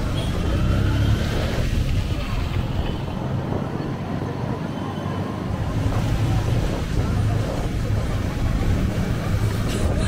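Road traffic: a steady low rumble of motor vehicles moving through city streets.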